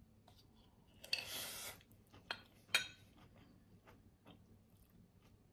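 Metal spoon and ceramic bowl being handled while eating: a short scrape about a second in, then two sharp clinks half a second apart, and a few faint ticks after.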